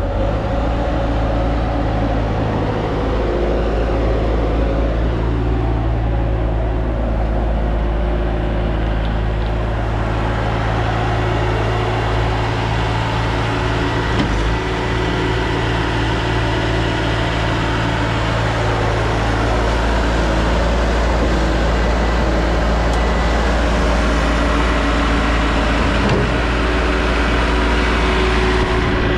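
Diesel engine of a 2004 Bobcat S250 skid steer running steadily with a deep, even drone; its tone wavers for a few seconds midway, then settles again.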